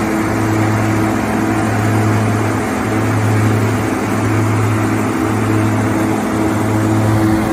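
OXBO green bean harvester's engine and machinery running steadily, a low hum with steady higher tones above it.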